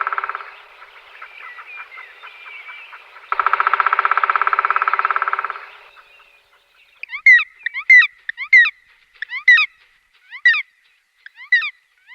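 Woodpecker drumming: a fast roll of taps dies away just after the start and a second roll of about two and a half seconds follows, then the woodpecker gives a series of about ten sharp, repeated call notes.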